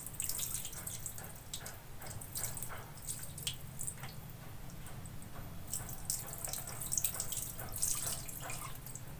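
Water ladled from a plastic scoop over a kitten, splashing and dripping into a plastic basin in a string of small, separate splashes.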